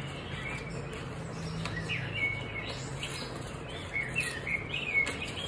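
Small birds chirping, short high chirps and quick pitch slides coming every half second or so, over a low steady hum.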